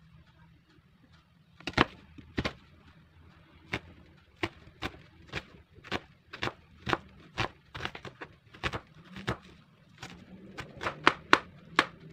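Chef's knife slicing an onion on a cutting board: sharp knocks of the blade striking the board, about two a second, coming faster near the end.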